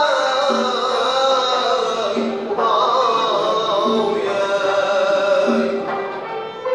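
A male voice sings Uzbek maqom in long, ornamented held phrases over a traditional string ensemble's accompaniment. The accompaniment repeats a low figure about every second and a half.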